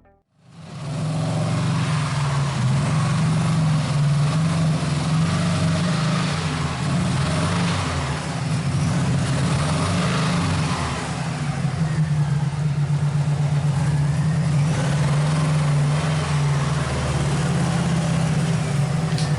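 Car engine running steadily with a constant low drone, mixed with broad road or wind noise.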